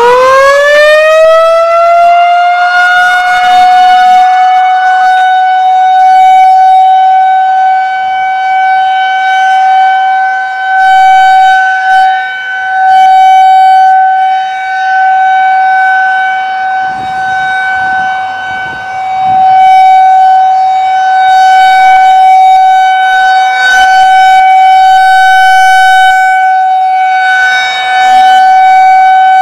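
Federal Signal 2001-130 rotating outdoor warning siren finishing its wind-up with a quickly rising pitch, then holding a steady single tone. The tone repeatedly swells and fades as the rotating head turns toward and away from the listener.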